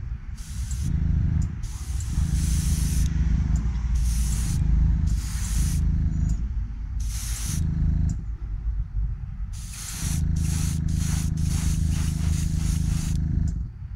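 Airbrush spraying in repeated short hissing bursts over the low hum of a small compressor; the bursts come quicker and shorter near the end.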